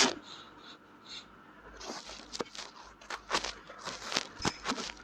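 Close-up ear-cleaning scratching: a tool rubbing and scraping right at the ear, heard as short scratchy strokes and clicks. They are sparse and faint at first and come more often from about two seconds in.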